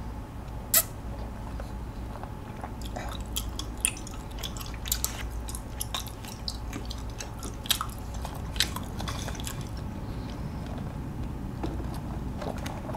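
A person chewing chewy tapioca pearls from chocolate bubble tea sipped through a wide straw, with irregular wet mouth clicks and smacks; the sharpest click comes about a second in.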